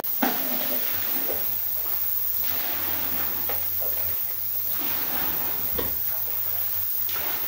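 Plastic dipper scooping water in a tall galvanized metal bucket: light sloshing with a few scattered knocks and clunks, over a faint low hum.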